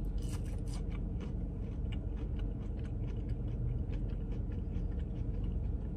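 Chewing a crispy battered fried mushroom: faint, irregular crunchy clicks over the steady low hum of a car cabin.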